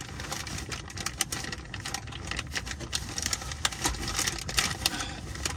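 A plastic bag crinkling and rustling in irregular crackles and clicks as a gloved hand works it around a spin-on oil filter to catch the draining oil.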